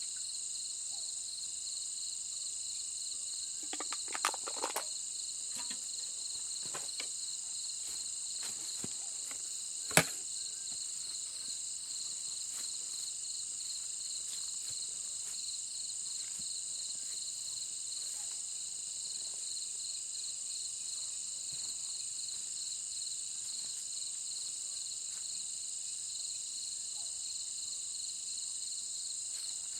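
Insects chirping steadily in several high pitches, one of them a fast pulsing trill. A few short clicks come about four to five seconds in, and a single sharp knock about ten seconds in.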